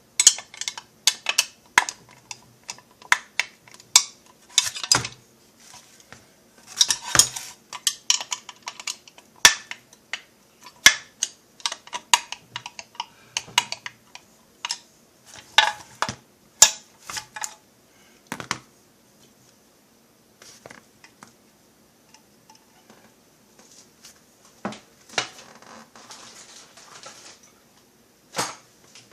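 Small metal parts and hand tools clinking and tapping against a metal chainsaw crankcase as it is being fitted together: irregular runs of sharp clicks and light metallic rattles, with a lull of a few seconds in the later part before a few more taps near the end.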